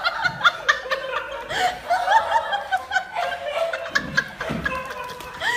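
High-pitched laughter in quick, rapid bursts, several a second, with scattered sharp taps and knocks.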